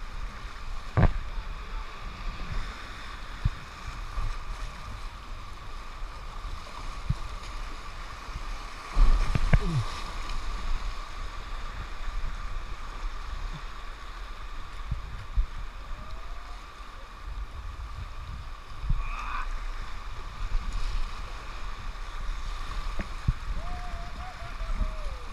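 River rapids rushing and churning around a whitewater kayak, a steady rush of water with a low buffeting rumble. Scattered knocks and splashes come through it, the loudest about nine seconds in.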